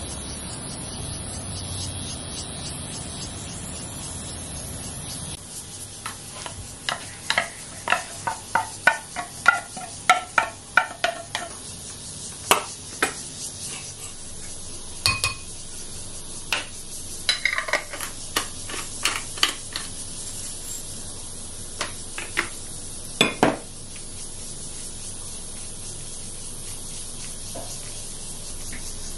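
A wooden spoon stirring canned tuna with mayonnaise in a small glass bowl: first a quick run of knocks and scrapes against the glass, then scattered single taps.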